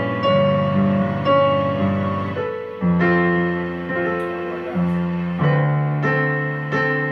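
Roland digital piano playing slow held chords, with a new chord struck about every half second to a second and each one fading until the next.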